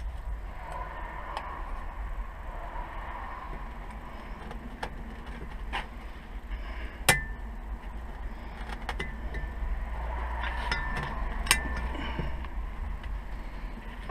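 A wheel bearing's steel circlip being worked into its groove in the hub: scattered light metallic clicks and scrapes, with a few sharper clicks that ring briefly, over a low hum.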